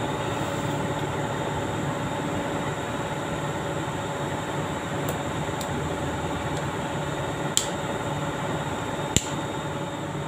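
Steady machine hum, broken by four short sharp clicks of a metal screwdriver and wire ends being handled at an electric chain hoist's terminal box. The two loudest clicks come about seven and a half and nine seconds in.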